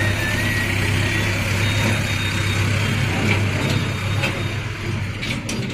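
A steady low mechanical hum runs throughout over a broad hiss, with a few sharp clicks about five seconds in.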